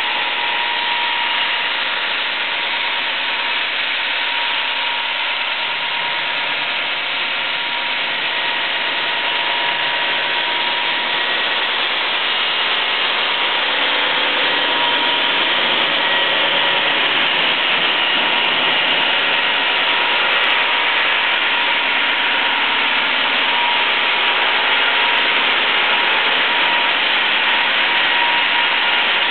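Automatic bridge saw for stone running: a loud, steady machine noise with a constant whine underneath, growing a little louder partway through.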